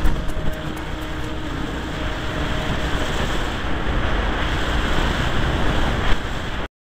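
Wind noise on the microphone of a riding dirt bike, a steady rushing with the engine's drone faintly underneath. It cuts off abruptly near the end.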